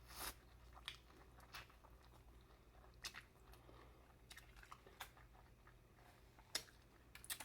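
Faint close-up mouth sounds of someone eating corn on the cob from a seafood boil: quiet chewing broken by about half a dozen sharp, short bites and wet clicks.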